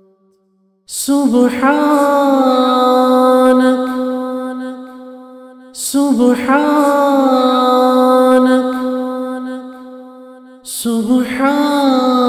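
A man's voice chanting a dua in Arabic: three long drawn-out notes of about five seconds each. Each note opens with a hissing 's' sound and a brief waver in pitch, then holds steady and slowly fades.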